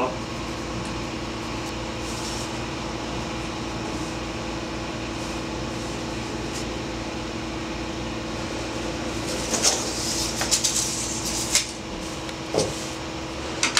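Steady mechanical hum in a small workshop room. About ten seconds in come a few short scratching sounds from work on the foam surfboard blank, then a single knock near the end.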